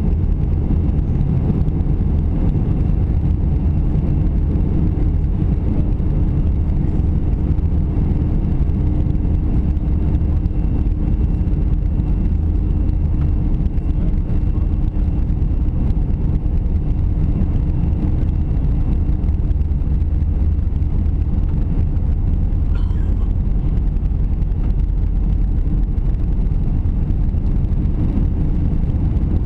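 Steady low rumble and engine hum heard inside the cabin of an Airbus A320-200 taxiing on the ground, with a steady hum that fades out about two-thirds of the way through.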